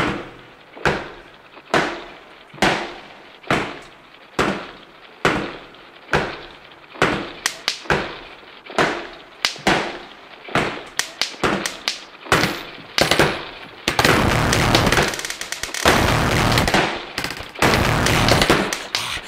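Sharp, echoing bangs like gunshots at an even pace of a little more than one a second. About eleven seconds in they quicken into rapid clusters, then give way to a dense, continuous loud noise.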